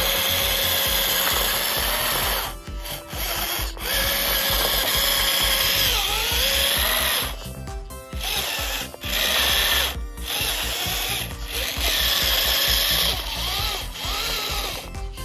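Small DC motor of an RC model tractor whining in runs of a few seconds with brief stops between, its pitch sliding up and down.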